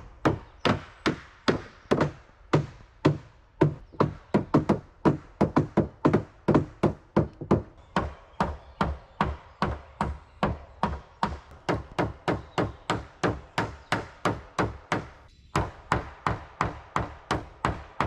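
Hammer driving nails into pine deck boards: steady strikes about two to three a second, with a short break about fifteen seconds in.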